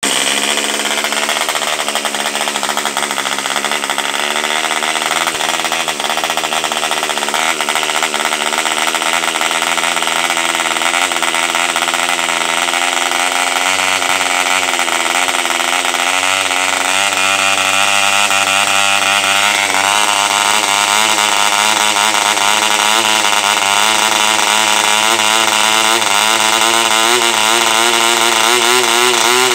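AMCO 3.5cc model diesel engine running fast, turning a 10×6 propeller. Its pitch wavers up and down throughout, more so in the second half.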